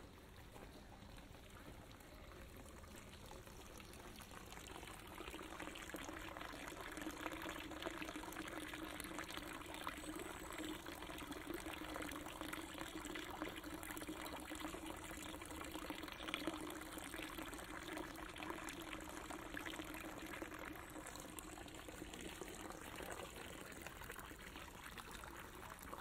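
Small forest stream trickling and babbling, growing louder about five seconds in.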